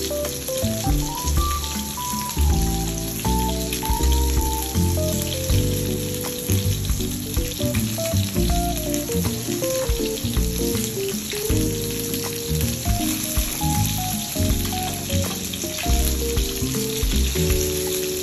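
Breaded chicken pieces shallow-frying in hot oil in a pan, a steady sizzle, under background music with a melody and bass line.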